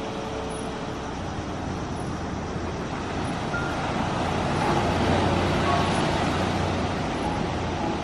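Waves breaking and washing up a sandy beach: a steady rush of surf that swells about halfway through and then eases.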